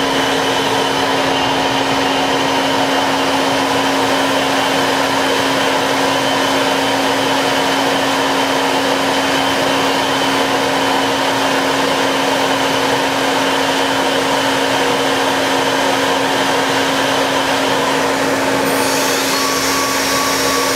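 Citizen L20 Type VII CNC Swiss lathe running, heard close up inside its headstock at the main spindle: a loud, steady whir with a constant hum and fainter whines. About eighteen seconds in, new higher whines and a low hum join in.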